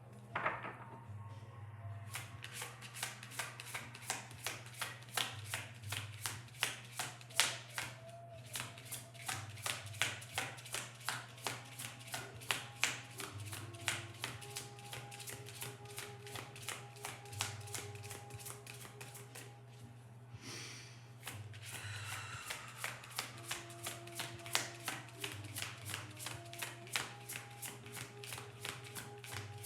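A deck of tarot cards being shuffled by hand: a long run of quick, soft card slaps at about three a second, with a short break about two-thirds of the way through before the shuffling starts again.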